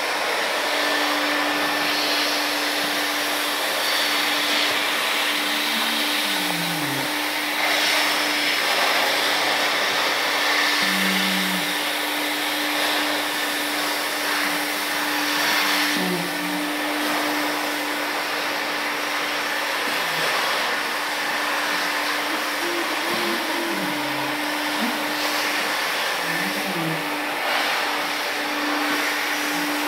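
Vacuum machine running steadily through the brick-wall desalination work, an even rushing hiss with a constant hum under it.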